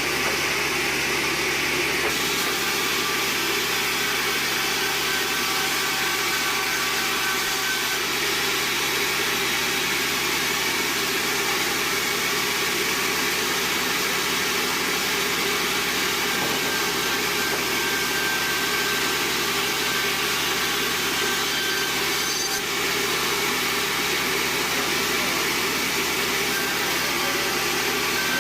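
Band sawmill running steadily, its blade cutting through a large bayur log.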